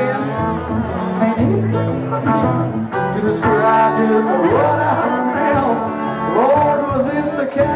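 Live country band performance: a male lead singer over guitar and bass, his voice sliding between notes a few times.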